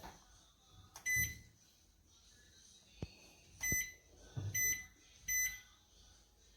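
Black+Decker EM720CB7 microwave keypad beeping as its buttons are pressed: about five short, high beeps spread through a few seconds, most with a faint click of the button press just before.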